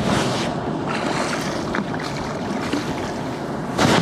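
Wind on the microphone and water splashing as a hooked smallmouth bass is fought to the side of a bass boat, with brief louder bursts of noise at the start and near the end.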